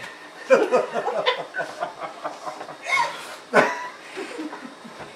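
People laughing in a quick run of chuckles that starts about half a second in, with a short, sharp sound about three and a half seconds in.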